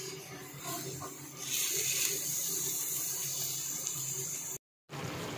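Silicone spatula stirring minced mutton in water in a pot: a wet, sloshing mixing sound over a steady hiss, broken by a brief silent gap near the end.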